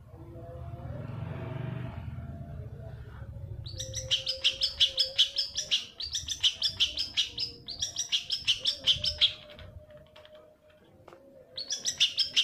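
Long-tailed shrike (cendet) singing a rapid chatter of repeated high notes in three back-to-back bursts, pausing briefly, then starting another burst near the end. This is a lure call used to set other shrikes singing.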